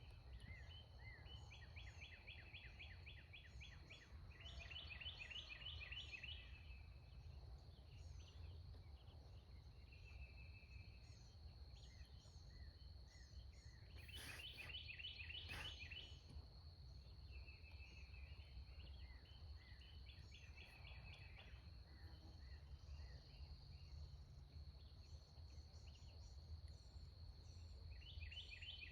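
Quiet morning woods: songbirds singing short rapid trills every few seconds over a steady high-pitched insect drone, with a faint low rumble of wind.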